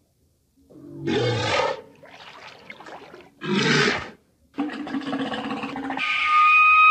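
Walrus calling: a deep, rough bellow about a second in, a second short one after about three and a half seconds, then a longer, lower call. Near the end a steady high whistle begins.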